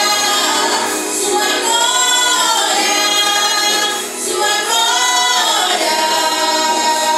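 A group of voices singing a worship song together, women's voices leading, in long held phrases.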